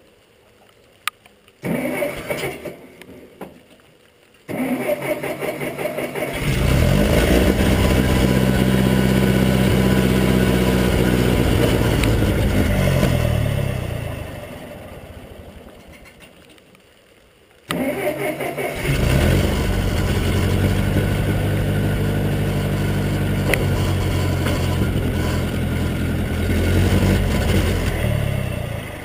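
Massey Ferguson 202 Workbull tractor engine being cranked and catching, running steadily, then dying away over a couple of seconds as it stalls. It is started again, runs steadily, and begins to die down near the end. The stalling under load is the fault being chased.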